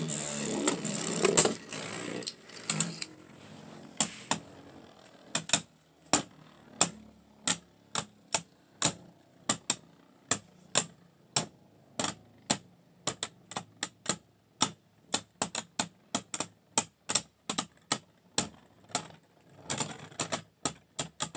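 Two Beyblade spinning tops in a plastic stadium: a whirring rush in the first few seconds after launch, then sharp clacks as the tops strike each other, repeating about one to two a second and coming faster later on.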